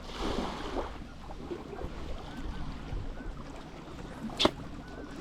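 Water lapping against a boat's hull and wind rumbling on the microphone, with one sharp click about four and a half seconds in.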